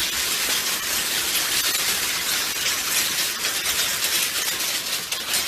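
Steady hissing noise.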